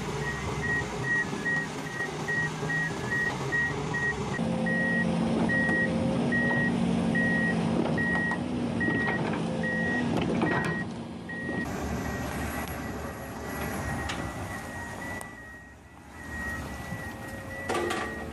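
Reversing alarm on heavy earthmoving machinery beeping at one steady pitch, about two beeps a second, over a diesel engine. The engine grows louder from about four seconds in, working under load, and the beeping fades out after about eleven seconds.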